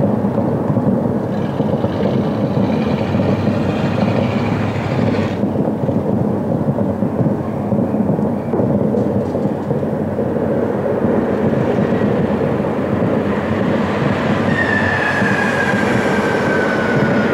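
Fireworks display: a loud, continuous rumble of overlapping bursts, with a thin falling whistle late on.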